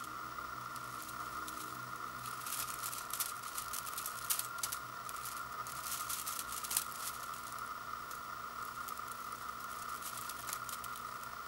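Brittle dried rice noodles crackling and snapping lightly as fingers pull strands loose from the block, with the crackles thickest in the middle and a few more near the end, over a faint steady hum.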